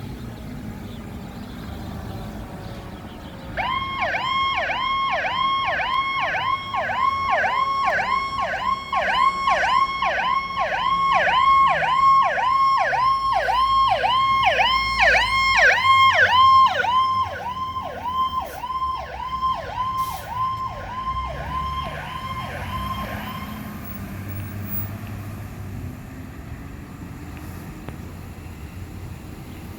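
Fire engine's electronic siren on a rapid yelp, about two rising-and-falling sweeps a second. It starts suddenly a few seconds in, grows louder, then fades and cuts off, over the truck's engine and road rumble.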